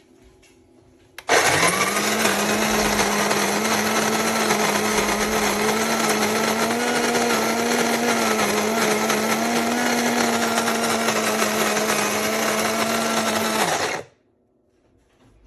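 Wancle electric flat burr coffee grinder running: the motor starts suddenly about a second in, runs at a steady pitch under a dense whirring noise, and cuts off after about twelve seconds.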